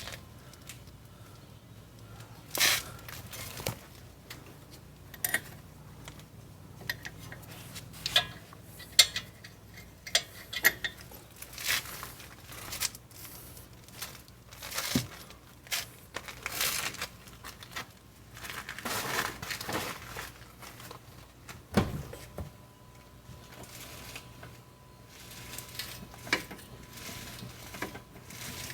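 Metal hand tools clinking and knocking, with handling rustle: irregular taps and clanks, one sharper knock late on.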